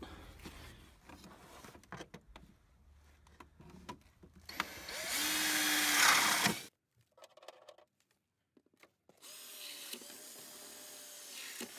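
Cordless drill with a twist bit running, boring bolt holes for the light bar brackets behind the grille. A loud run starts about five seconds in and cuts off abruptly. After a pause with a few faint taps, a quieter steady run follows through the last few seconds.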